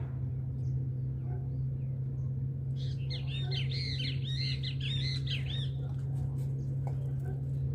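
Several birds calling together in a quick chattering burst of high chirps, starting about three seconds in and lasting about three seconds, over a steady low hum.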